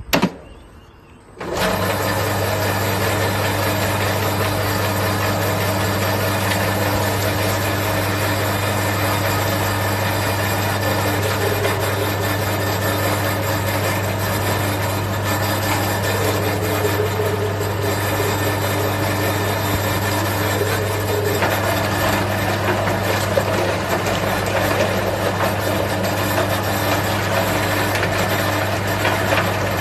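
Electric meat grinder running steadily with a low hum as it minces raw fish pieces. It starts about a second and a half in.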